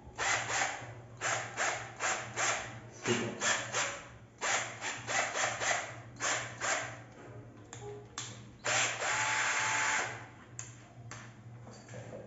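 A 12 V cordless drill-driver's motor run in a string of short trigger pulses, then held for about a second and a half with a faint steady whine before stopping.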